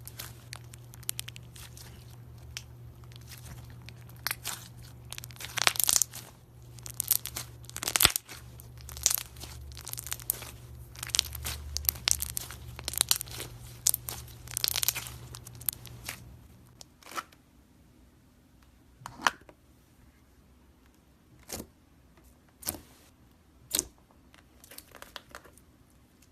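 Slime being squished and stretched by hand, giving a dense run of crackles and pops over a low hum for about sixteen seconds, then only a few scattered, sharper pops.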